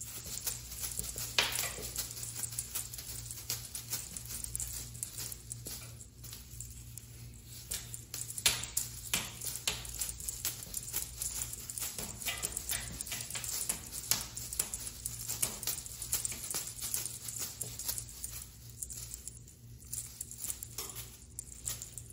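Cat wand toy with foil tinsel, beads and a small bell being swung and shaken, giving a continuous rustle with many quick clicks and taps. A low steady hum lies underneath.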